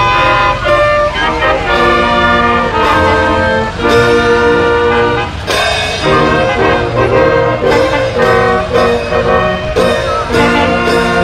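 Brass band playing live, trombones and trumpets sounding held chords that change every second or so, with sharp beats marking the rhythm.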